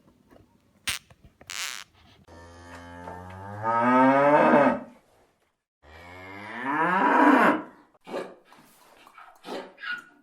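A cow mooing twice, two long calls that rise in pitch, after two short clicks.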